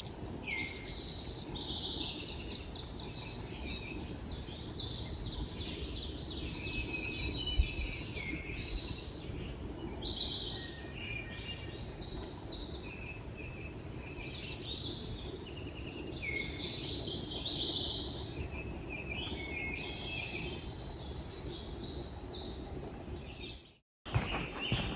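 Woodland songbirds singing: a steady run of short, high phrases, one every second or two, over a faint low background hiss. The sound breaks off abruptly near the end.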